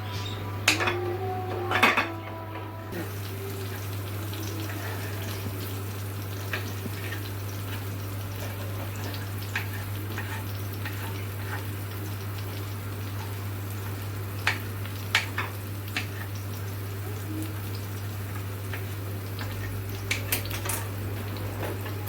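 Kitchen utensils clinking against dishes and a pan, a few ringing clinks near the start, then scattered light taps and clicks over a steady hiss and low hum.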